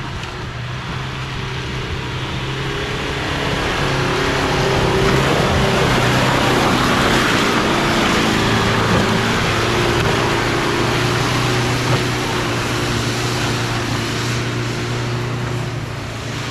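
Toyota Hilux 3.0 D-4D diesel engine pulling hard as the truck climbs a muddy forest track, with tyres churning in the mud. It grows louder as the truck comes close about halfway through, then fades as it pulls away. The ABS signal is switched off, so traction control does not cut the throttle and the wheels are free to spin.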